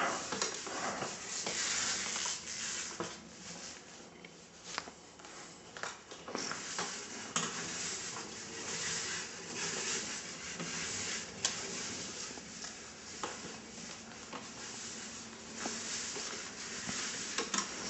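Quiet handling noises: a soft, steady rustle with scattered light clicks and knocks.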